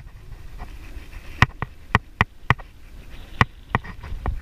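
Bicycle rattling over rough, cracked pavement: sharp, irregular knocks and clanks, sometimes two or three within a second, over a low rumble of tyres and wind.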